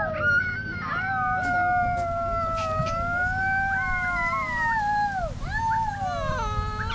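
Several wolves howling together: long, overlapping howls at different pitches, each sliding slowly up and down, with new howls starting and dropping off near the end.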